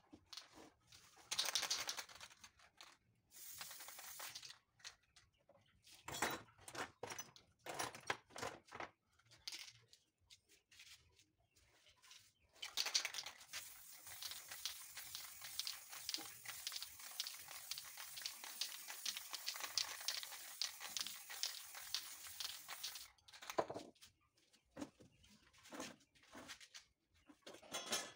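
Paper rustling and crinkling as it is handled over the painting, in several short bursts and then a longer stretch of about ten seconds past the middle.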